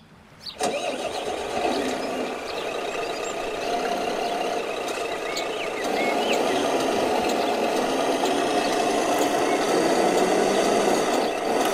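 Radio-controlled dump truck's drive running steadily, becoming louder about six seconds in as the truck starts to move through the muddy water.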